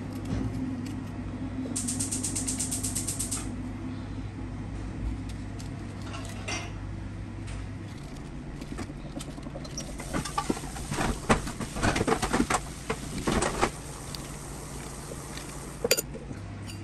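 Metal spoon scraping the dry, fibrous flesh out of a halved tabon-tabon fruit, in bursts of quick rasping strokes. The strokes are faster and finer about two seconds in, and harder with clicks in the middle stretch. A single sharp click comes near the end.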